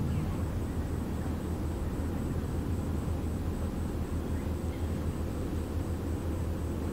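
Steady low engine drone of a large ship, the car ferry's diesels running as she leaves port. A faint high-pitched pulsing, a few pulses a second, sounds over it.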